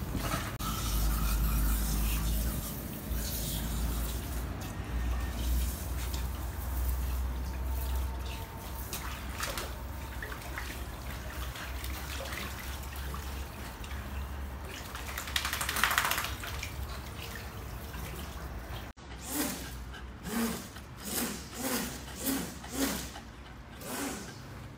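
Water running from a garden hose onto the floor of an empty frame swimming pool, a steady trickling and splashing over a low rumble. It cuts off suddenly near the end and is followed by a run of short sounds, about two a second.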